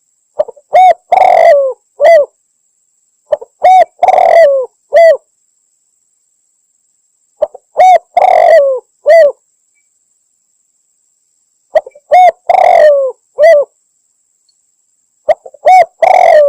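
Spotted dove (tekukur) cooing: five loud phrases, each a few short coos around a longer, drawn-out middle note, repeating about every four seconds. It is a lure call played to attract doves, said to be a female calling a male.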